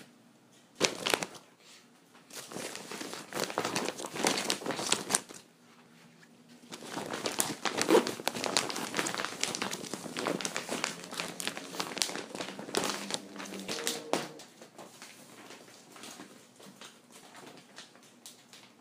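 Plastic bag crinkling and rustling as it is handled, in bursts through most of the first fourteen seconds, then dying down to faint scattered crackles. A faint steady low hum sits underneath from about six to fourteen seconds.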